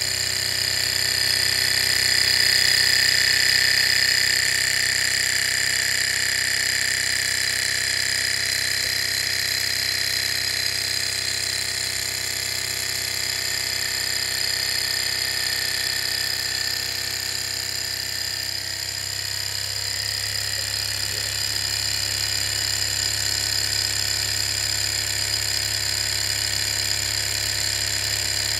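Small model Stirling hot-air engine running steadily on its alcohol burner, its flywheel spinning and driving a little DC motor by a belt: a continuous high-pitched mechanical whine with a fast, even rattle.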